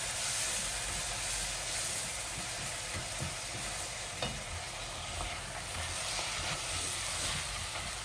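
Beef and dried beef with onions and spices sizzling as it fries in a steel pot, while a wooden spatula stirs it, with a faint knock or two of the spatula against the pot.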